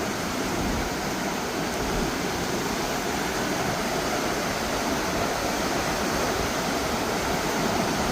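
Steady, powerful rush of Nevada Fall, a large waterfall, heard close up in its spray.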